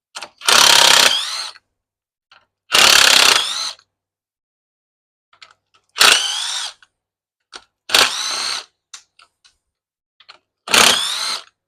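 A cordless drill/driver backing out the T27 Torx screws of a Stihl FS55 RC trimmer's engine housing: five short runs of about a second each, the motor's whine rising in pitch as it spins up, with light clicks between runs.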